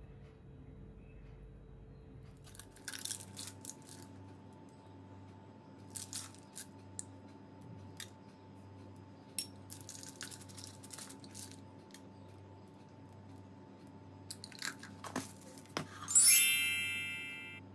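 Scattered light clicks and ticks as chocolate chips are dropped onto a ganache-covered cake on a metal serving plate. Near the end comes one loud ringing clink, fading over about a second and a half, as the ornate metal plate is picked up.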